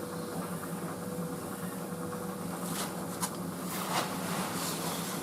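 White Knight CL43 tumble dryer running: a steady, quiet hum of the motor and turning drum, with a few light clicks in the second half.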